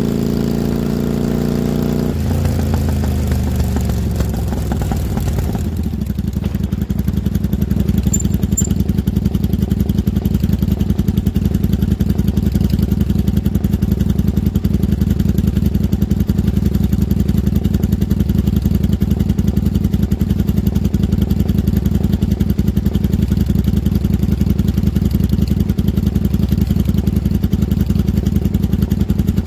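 1995 Kawasaki Vulcan 750's V-twin engine winding down as the bike slows, its pitch falling over the first few seconds, then idling steadily with even pulses.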